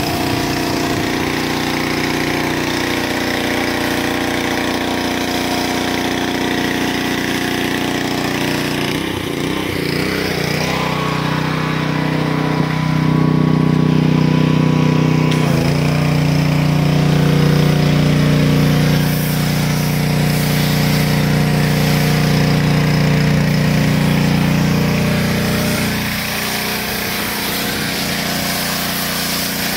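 Pressure washer running with a foam cannon on its lance: a steady motor drone with the hiss of the spray. The drone grows louder from about twelve seconds in, shifts in pitch a few times, and drops back near the end.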